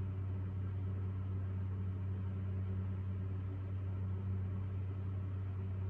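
Steady low hum with a faint even hiss underneath, unchanging: background room hum.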